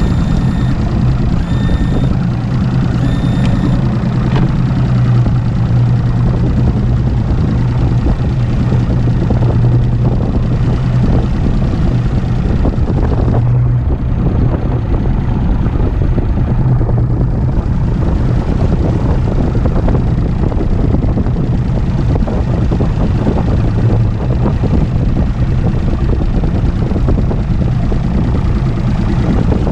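Mercury Optimax 200 HP direct-injection two-stroke outboard running steadily at speed, with the hull slapping across wind-driven chop and wind rushing past. Three short beeps in the first few seconds.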